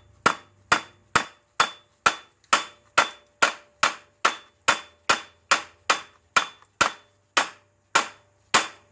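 Hammer tapping steadily on a seized, corroded AC compressor mounting bolt to drive it out, a little over two strikes a second, each hit ringing briefly like metal.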